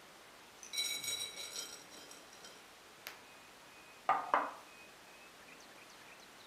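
Crushed hazelnuts tipped from a bowl onto a ceramic plate, a ringing clatter lasting about a second, followed by a click and two sharp knocks as the bowl is set down.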